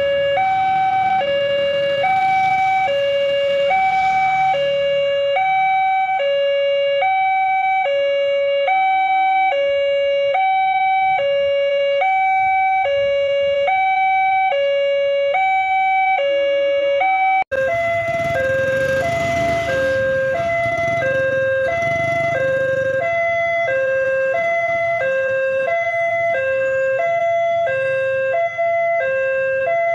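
Electronic level-crossing warning alarm at a railway crossing, sounding a steady two-tone high-low alternation, about one high-low pair per second, while the lights flash and the barriers are down. About 17 seconds in a cut switches to another crossing whose alarm alternates a little lower in pitch, with traffic noise briefly mixed in just after the cut.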